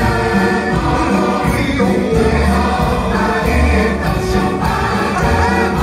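Orchestral show music with a choir singing.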